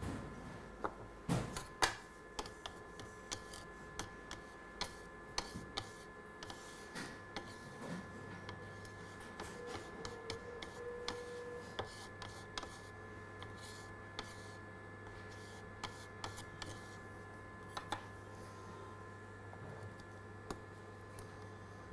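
Small clicks, taps and scrapes of ground coffee being tipped into a plastic sample tray and levelled with a metal scraper, with the tray handled and knocked on the bench; the loudest taps come about a second and a half in. A faint steady hum runs underneath.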